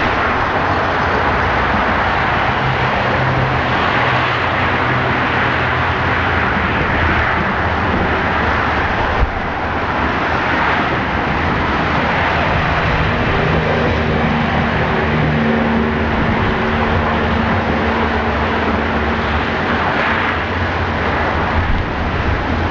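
Steady road-vehicle noise with a low engine hum that shifts slowly in pitch, and one short sharp knock about nine seconds in.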